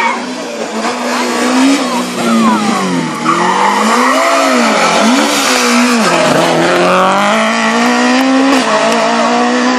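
Rally car engines at full throttle, the pitch climbing and dropping several times with gear changes and lifts off the throttle, with tyre squeal as a car slides through a hairpin.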